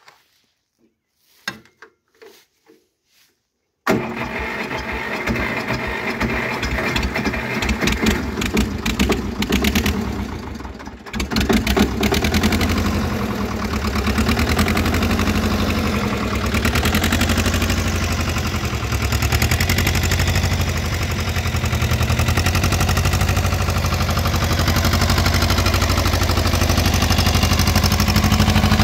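A few faint clicks, then about four seconds in the Lombardini LDA 672 air-cooled diesel of a Valpadana 330 tractor is started cold at −2 °C after three days of frost. It runs unevenly at first, dips briefly about eleven seconds in, then settles into a steady idle.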